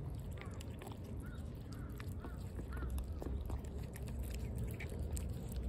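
Birds calling outdoors in short, arching chirps, several a second, over sharp crunching clicks of cats chewing dry cat food and a low background rumble.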